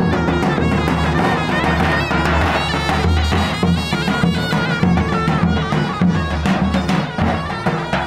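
Davul and zurna playing a folk tune: the zurna's melody, full of quick ornamental turns, over the davul's steady drumbeat.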